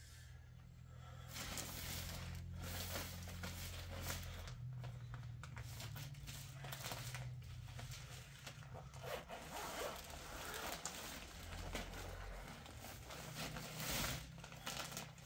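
Plastic bedding bags crackling and rustling as quilts and blankets are shifted and pulled from a stacked pile, with a low hum underneath.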